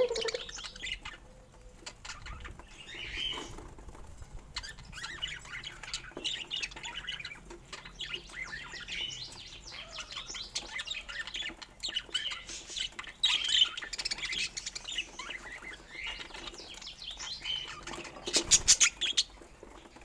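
Pet budgerigars chirping and chattering in short warbles throughout, with a brief loud burst of sharp clicks or fluttering a little before the end.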